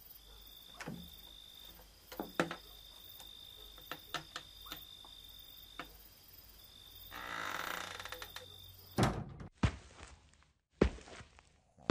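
Horror sound-effect sequence: a steady high tone with brief gaps, scattered soft knocks, and a rushing noise that swells and fades about seven seconds in. Then the sound changes abruptly to a few loud thuds.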